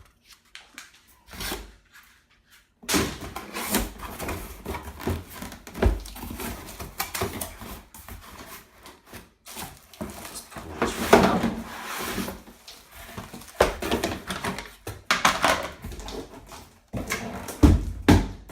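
Packaging and fan parts being handled during unpacking: irregular rustling and clattering with sharp knocks, starting after a couple of near-silent seconds.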